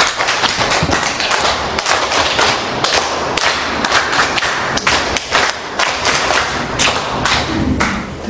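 A class of schoolchildren clapping their hands together, a dense run of sharp claps.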